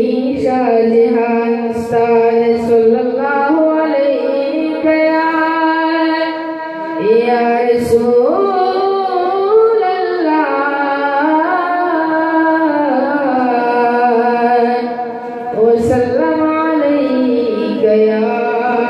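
A young man singing a naat, an Urdu devotional poem, solo into a microphone, holding long notes that bend and waver. A few brief clicks sound near 2, 8 and 16 seconds in.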